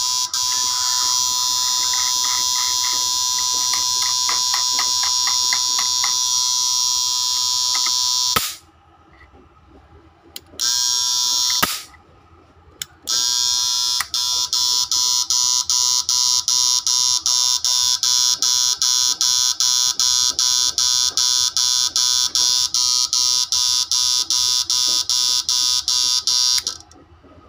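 MT110 10-MOSFET inverter running on test, giving a shrill, high electrical buzz with an even, rapid pulsing. It cuts out about eight seconds in, comes on again briefly, then runs again from about a third of the way through until near the end.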